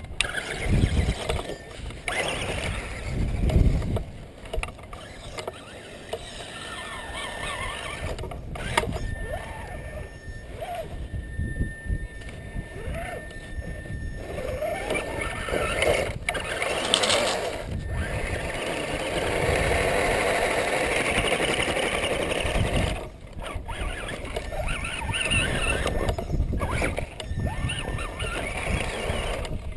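Axial Wraith RC rock crawler driving over rocks and sand: its 27-turn brushed electric motor and gear drivetrain whirring, with the tires scrabbling and spitting sand. A thin steady whine comes and goes.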